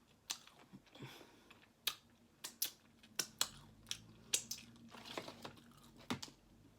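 Close-up eating of sauced fried chicken: chewing and lip-smacking heard as irregular sharp clicks, a few a second.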